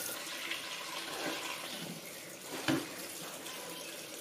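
Tap water pouring into an aluminium pot and splashing over a whole raw chicken being rinsed by hand, with a brief knock about two and a half seconds in.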